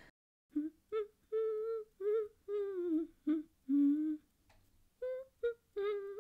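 A voice humming a short, bouncy tune in about ten separate notes with brief gaps between them, some notes wavering in pitch, with a longer pause a little past the middle.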